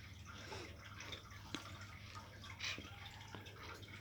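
Faint handling sounds: a few light clicks and small drips.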